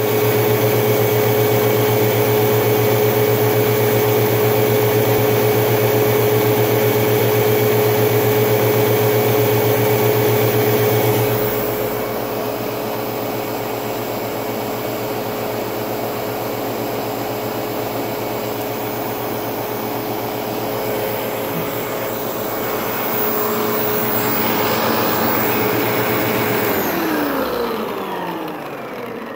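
Tornado CV30 commercial upright vacuum cleaner running steadily, a little quieter after about eleven seconds. Near the end it is switched off and the motor winds down with a falling whine.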